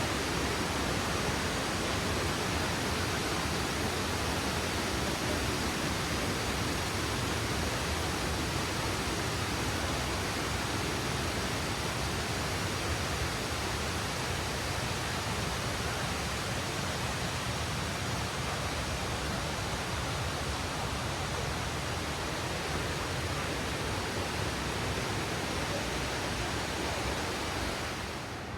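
Steady, even rush of falling water, with no change in pitch or rhythm; it softens slightly near the end.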